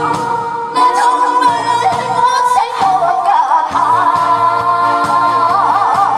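A woman sings into a handheld microphone over instrumental accompaniment. She holds long notes, and the last ones near the end waver with wide vibrato, above a pulsing bass line.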